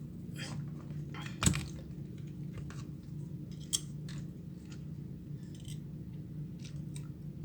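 Light clicks and taps of small repair tools on a smartphone's circuit board, with one sharper click about a second and a half in, over a steady low hum.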